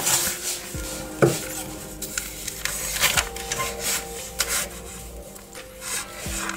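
Fabric scissors cutting through stiff oilcloth, with irregular snips and the crinkling of the coated sheet as it is smoothed and moved.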